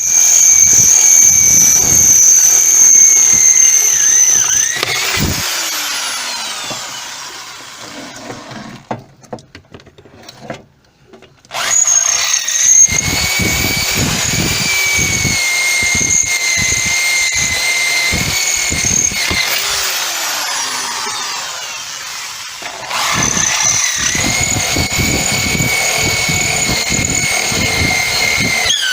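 Electric drill with a 5/16-inch metal bit drilling out the rivets on a Mabe washing machine's transmission housing. It runs in three spells with a steady high whine, winding down in pitch between them, with a short quiet gap near the middle.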